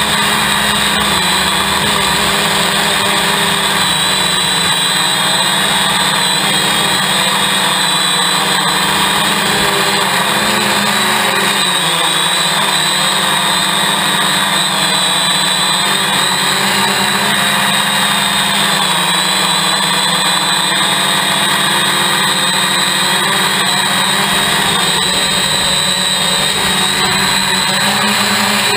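Hexacopter's six electric motors and propellers whirring, heard loud and close from a camera on the craft: a steady high whine whose pitch shifts a little as the motors speed up and slow down to steer.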